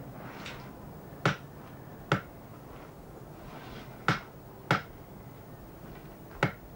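Butcher's knife cutting pork chops from a loin on a wooden block: five sharp knocks of the blade striking the block, with a couple of softer slicing swishes between them.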